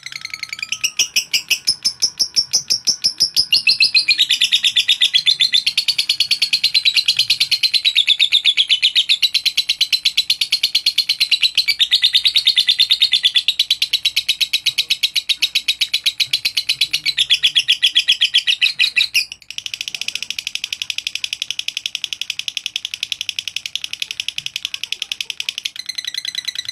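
Masked lovebird singing its long 'ngekek' chatter: a rapid, unbroken stream of shrill repeated chirps. It breaks off briefly about nineteen seconds in, then carries on.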